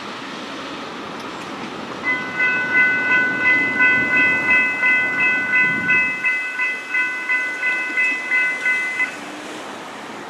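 Railroad grade-crossing bell ringing about three strokes a second for some seven seconds, then stopping suddenly, over the steady rumble of a passing freight train.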